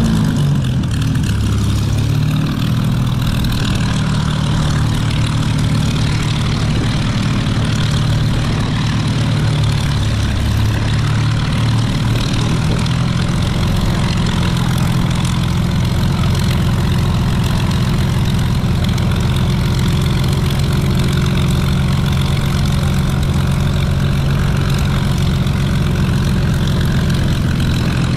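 A large engine idling close by, its speed rising and falling during roughly the first ten seconds, then running steadily.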